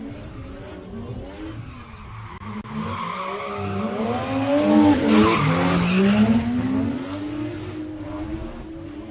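Drift cars sliding in tandem, their engines revving up and down against the rev limiter's swings while the rear tyres squeal and skid. The sound swells to its loudest about halfway through as the cars slide past, then eases off.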